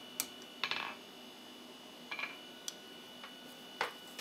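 A few light metallic clinks and knocks, two of them ringing briefly: a forging hammer set down on the anvil face, and tongs holding a hot hook blank shifting against the steel.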